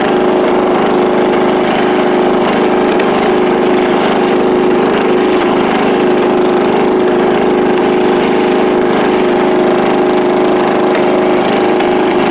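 Riding lawn mower's engine, running without a muffler on a custom exhaust, running steadily at an even speed.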